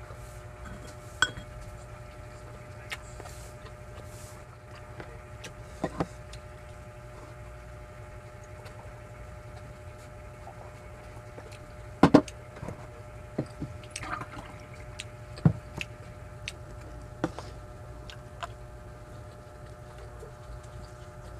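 Close-miked eating sounds of rice and sardines eaten by hand, with a drink from a glass and scattered sharp clicks and knocks, the loudest pair about halfway through, over a steady low hum.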